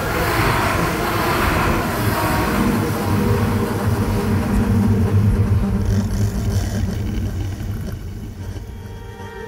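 Experimental electronic music: a steady low drone under a hissing layer of noise, which thins out and grows quieter near the end.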